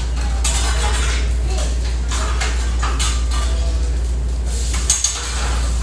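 Busy short-order kitchen: metal utensils scrape and clatter at the grill over a steady low hum, with two sharp knocks about five seconds in.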